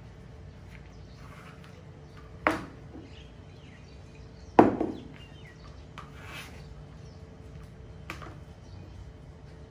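Sharp knocks of a kitchen knife and a glass jar against a plastic cutting board while okra is sliced and put into the jar. Two loud knocks come about two seconds apart around the middle, the second the loudest, and a lighter knock comes near the end.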